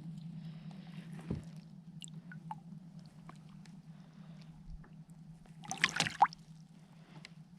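Faint water sounds of a bass being released beside a kayak: small drips and trickles, with a brief burst of splashing about six seconds in. A faint low hum runs underneath.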